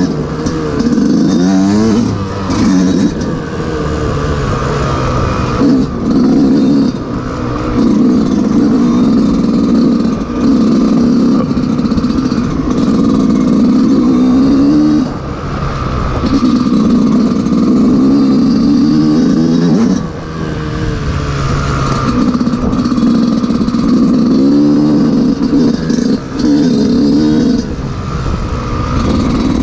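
Yamaha YZ125 two-stroke single-cylinder dirt bike engine under way, revving up and falling back over and over as the throttle is worked on a rough trail. It drops away briefly a few times as the throttle is rolled off.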